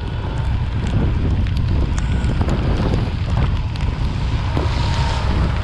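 Wind buffeting the microphone of a GoPro Hero7 riding on a moving motorbike in rain, a loud steady rumble, with scattered sharp ticks of raindrops striking the camera.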